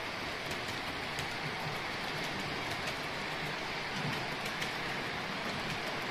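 Model electric freight train rolling along its track: a steady hiss of wheels on rail with many light, scattered clicks.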